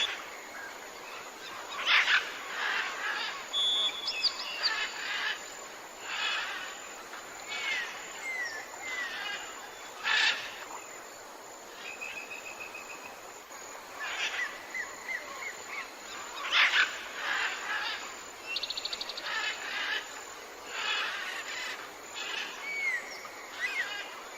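Jungle ambience: many birds calling, with short chirps, falling whistles and a quick trill, over a steady background hiss. A few louder calls stand out about 2, 10 and 17 seconds in.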